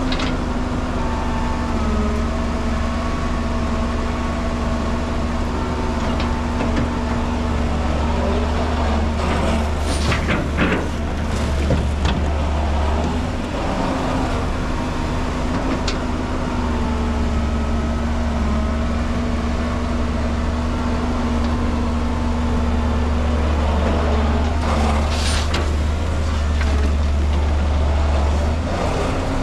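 Heavy diesel engines of a Caterpillar crawler excavator and a dump truck running, with the excavator's engine pitch sagging and recovering as it works its hydraulics. A short rushing clatter about ten seconds in and another near twenty-five seconds, as soil is tipped from the bucket into the steel dump bed.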